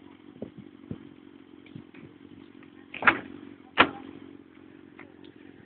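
An engine idling steadily, with two sharp knocks about three seconds in, less than a second apart.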